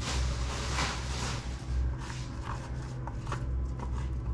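Soft rustling and handling noises, with a few light clicks, over a steady low hum.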